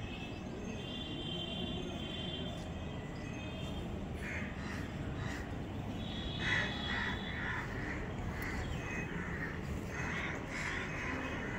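Crows cawing in a run of short repeated calls, starting about four seconds in and coming thickest in the second half, over a steady low background rumble.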